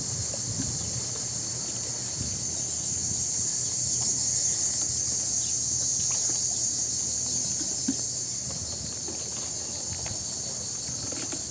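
A steady, high-pitched chorus of cicadas shrilling without a break, over a low background rumble.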